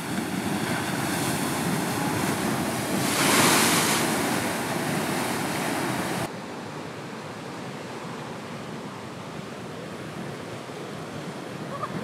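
Ocean surf breaking and washing over a rock ledge. A wave crashes loudest about three seconds in, then the sound drops suddenly to a quieter, steady wash about six seconds in.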